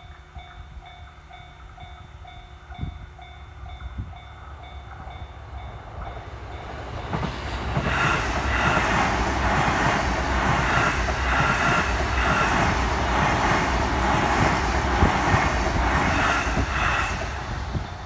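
Japanese railway level-crossing warning bell ringing at about two strokes a second. Then an electric commuter train passes over the crossing: it grows loud about eight seconds in, with a rhythmic clatter of wheels over rail joints that drowns the bell, and falls away near the end.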